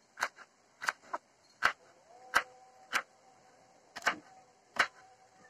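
A kitchen knife chopping through ginger onto a wooden cutting board: about ten sharp knocks at an uneven pace.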